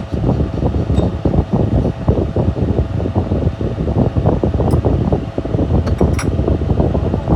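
A fan running close by, its airflow buffeting the microphone in a loud, steady flutter with a faint hum, and a few light clicks over it.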